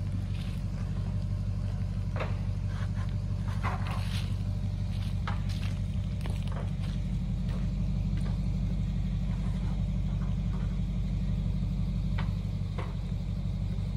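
Pickup truck engine idling steadily, a constant low hum, with a few scattered knocks over it.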